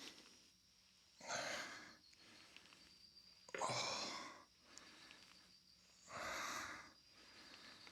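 A man breathing hard through a set of exercise reps, with three forceful exhalations spaced about two and a half seconds apart. A faint steady high-pitched whine runs underneath.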